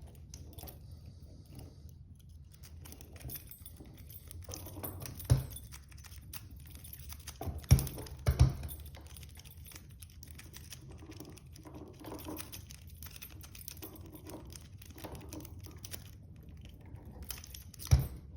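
A large 60 mm steel padlock being handled, with light metallic clicks and rattles throughout. Sharp knocks come about five seconds in, twice near eight seconds, and again near the end.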